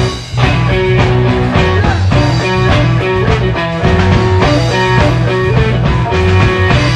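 Rock music with guitar, bass and a steady beat.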